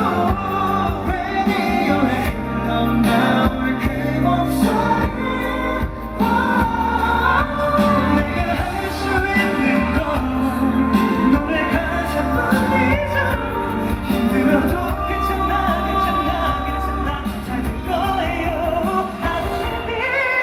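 Pop song performed live: male voices singing a melody over a steady band backing.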